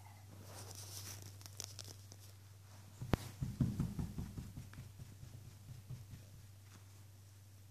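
An English bulldog's ear being rubbed and squeezed, with faint rustling of fur. About three seconds in, a sharp click is followed by a quick run of soft thumps that dies away over the next few seconds, as her hind leg kicks in a scratch reflex.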